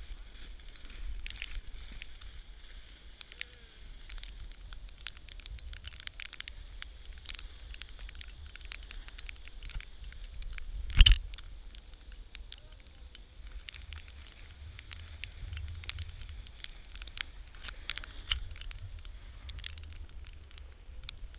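Low wind rumble on an action camera's microphone, with scattered crackling and clicking from the hand-held camera pole being handled, and one sharp knock about eleven seconds in.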